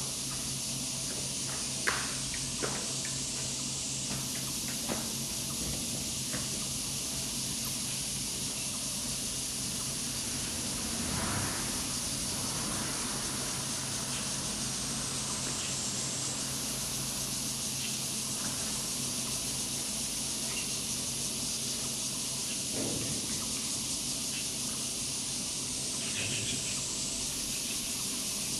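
A steady, high-pitched insect chorus that shifts in pitch and strength a few times, over a low steady hum. A few faint clicks come in the first several seconds.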